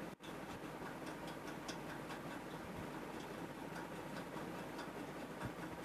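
Quiet room noise with faint, irregular light clicks, a few a second.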